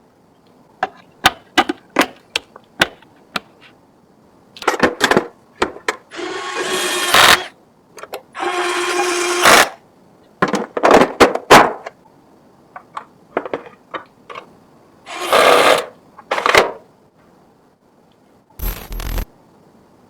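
Clicks and knocks of computer parts being handled and fitted. A small power tool runs briefly twice, each run about a second and a half with a steady hum, about six and eight seconds in.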